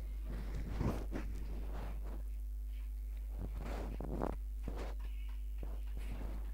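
A steady low electrical hum, with scattered soft knocks and rustles about a second in and again around three and a half to five seconds in.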